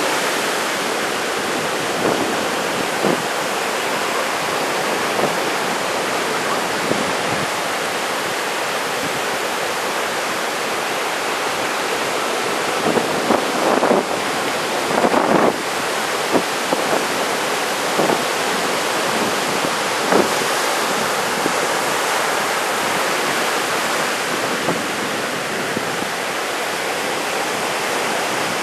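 Big typhoon-driven surf breaking and washing on the beach: a steady rush of noise, with a few short louder surges about halfway through.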